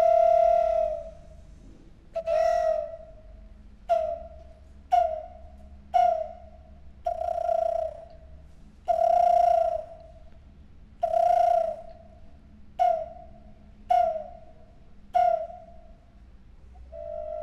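Ancient Maya wind instrument blown as about a dozen separate notes at nearly one pitch, a fairly pure whistling tone. Some notes are short toots and others are held for a second or more.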